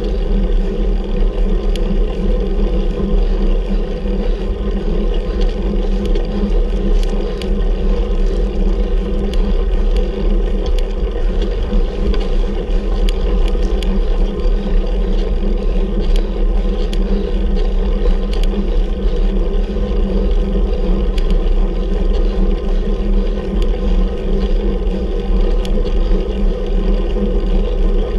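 Steady rumbling ride noise picked up by a camera on a bicycle climbing a hill, with scattered faint ticks throughout.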